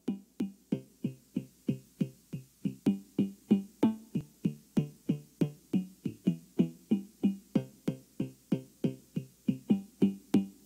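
Music: a synthesizer keyboard playing a quick, even run of short plucked notes, each fading fast.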